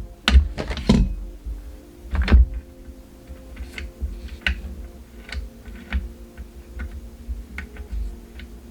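Clicks and knocks of a metal tripod's leg and latch parts being handled during a repair: a few louder knocks in the first couple of seconds, then lighter, irregular ticks.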